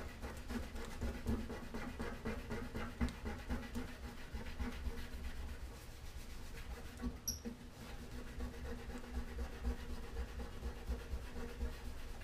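Fine 0000 steel wool rubbed back and forth by hand over the painted steel lid of an old toolbox, a steady scratchy scrubbing made of quick repeated strokes as the paint is worn through.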